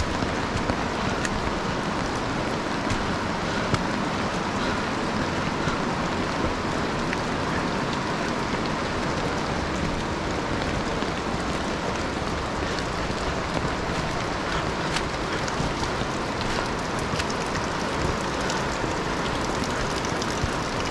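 Steady rushing noise of river water, with the light scuffs of footsteps on the wet, leaf-covered trail.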